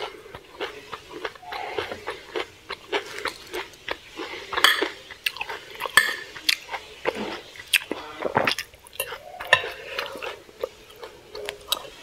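Metal fork and spoon clinking and scraping against a plate as rice and fried chicken are gathered up, with chewing. There are many irregular sharp clicks.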